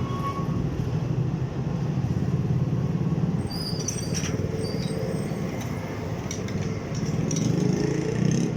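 Motorcycle engine running steadily, a low, rapidly pulsing rumble, with a few brief high chirps around the middle.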